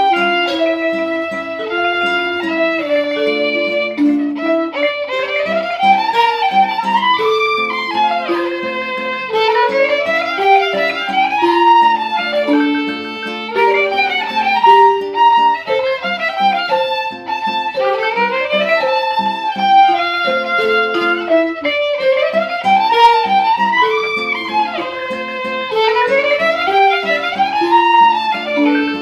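Instrumental music: a melody of repeated rising-and-falling phrases over lower held notes, playing steadily.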